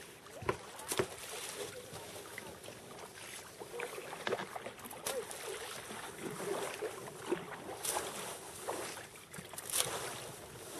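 Water lapping and splashing around sea kayaks, with a string of short, sharp splashes and knocks.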